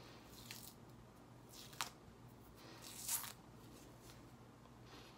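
Peel-off face mask being pulled off the skin: faint short tearing sounds, three of them, about half a second, two seconds and three seconds in.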